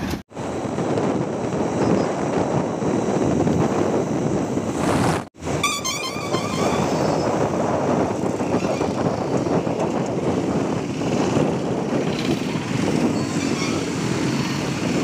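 Steady wind rush and road noise from riding through town traffic in an open vehicle, with a short vehicle horn toot about six seconds in. The sound cuts out for an instant twice, near the start and about five seconds in.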